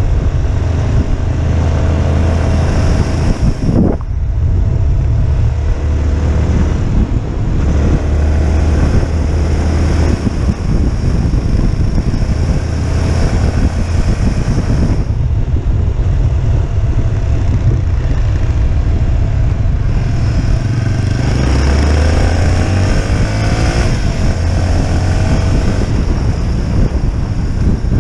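Motorcycle riding: the engine runs continuously under way, with wind rushing over the microphone. The rush and engine note ease off briefly about four seconds in and again around fifteen seconds in, then pick up again.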